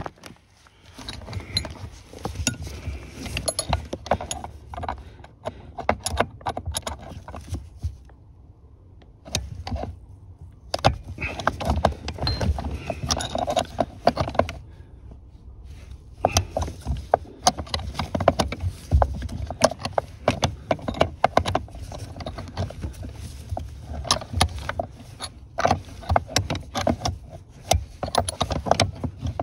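Irregular metallic clicking and clattering of hand tools working on the pedal-box bolts, in bursts with short pauses, with clothing brushing against the microphone.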